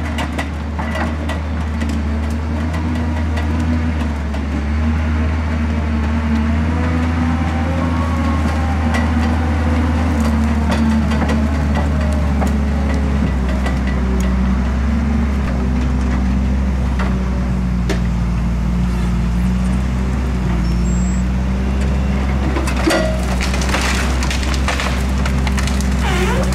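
NOE 170-6R skidder's 6.7-litre six-cylinder diesel running under load, its pitch shifting as the crane hydraulics work. From about three-quarters of the way in, branches crack and snap as the crane grapple grabs brush.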